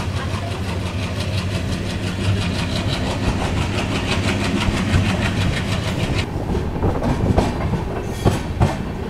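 Passenger train hauled by a WDM3A ALCO diesel locomotive pulling out of a station, heard from an open coach doorway. A steady low rumble runs under a fast, even pulsing that stops about six seconds in, and a few sharp knocks of wheels over rail joints come near the end.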